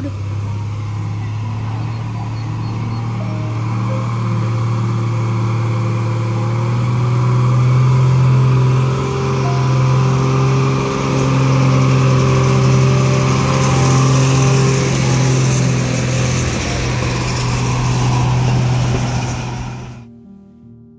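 Diesel locomotive's engine running loud under power as it moves along the platform, its pitch stepping up about seven seconds in and holding there. The sound cuts off sharply near the end.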